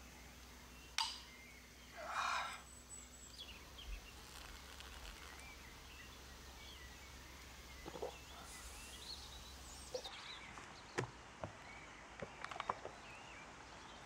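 Beer bottle being opened: a sharp click about a second in, then a short fizzing hiss, over quiet forest ambience with faint bird calls.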